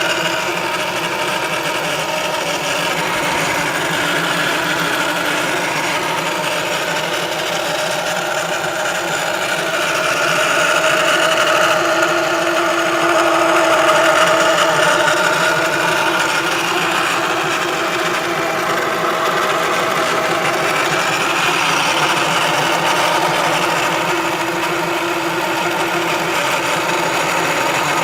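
Ford Focus making a steady mechanical whine and hum with several held tones, swelling slightly partway through. It is an abnormal noise that the owner attributes to the transmission control module (TCM).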